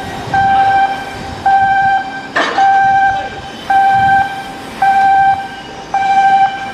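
Electronic warning beeper sounding a steady repeating beep, about one half-second beep a second, six in all. A single sharp metallic knock cuts in about two and a half seconds in.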